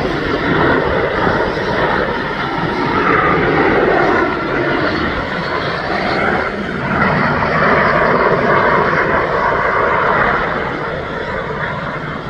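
Sikorsky MH-60T Jayhawk helicopter flying, with its twin General Electric T700 turboshaft engines and main rotor heard loudly as it climbs away after takeoff. The noise eases off a little near the end as it gains distance.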